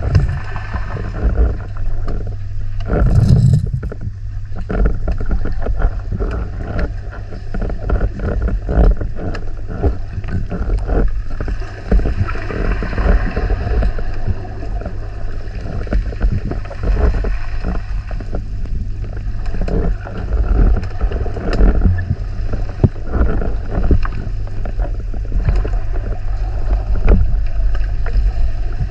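Underwater sound picked up by a speargun-mounted camera: a steady low drone under constant irregular crackling and clicking, with one louder whooshing rush a little over three seconds in.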